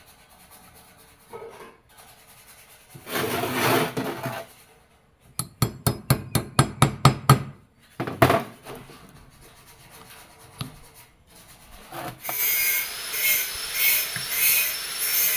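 Metal parts and hand tools being worked while a small gearbox is assembled: a scraping rub, then a quick run of about a dozen sharp metallic clicks, a single knock, and near the end a pulsing whir with a faint rising whine.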